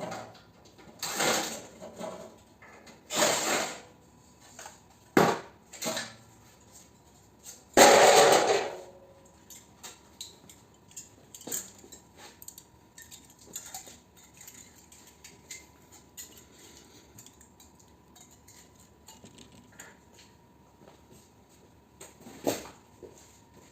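Metal scrap from a dismantled mini-split air conditioner clanking and clattering as it is handled: several sharp clanks in the first few seconds, the loudest about eight seconds in with a brief ring, then light ticking and two more clanks near the end.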